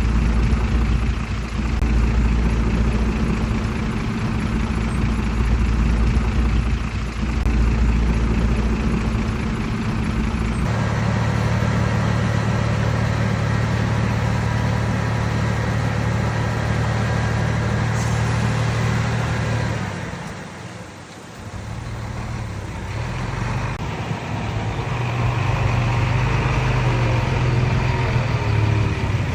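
Heavy diesel engine running steadily, from earthmoving machinery. Its tone changes abruptly about ten seconds in, and it dips briefly in level around twenty seconds in before coming back.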